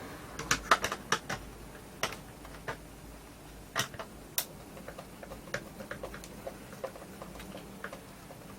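Small, sharp clicks and taps of a thin screwdriver and loose screws against the plastic casing of a wireless speaker being taken apart, irregular, a quick cluster in the first second or so, then scattered.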